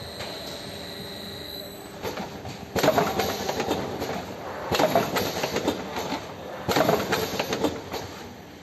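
Automatic vertical cartoning machine running, its mechanism clattering in loud bursts of rapid clicks about every two seconds after a quieter start.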